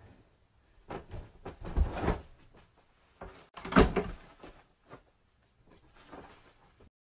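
A few dull knocks and thumps, a group about a second or two in and the loudest one nearly four seconds in, with fainter ones near the end.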